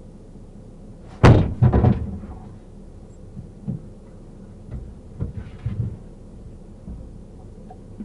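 Thumps and knocks: a loud double thump about a second in, then a scatter of lighter knocks and bumps.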